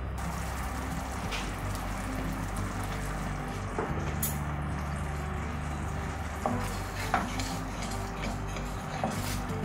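A thick ketchup-and-hot-sauce sauce simmering and bubbling in a stainless steel saucepan as it is stirred with a wooden spatula. There are a few light clicks of the spatula against the pot.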